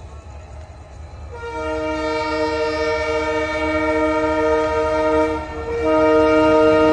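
Diesel locomotive's multi-tone air horn sounding a long blast from about a second in, breaking off briefly near the end and then sounding again, over the low rumble of the approaching WDP4D locomotive.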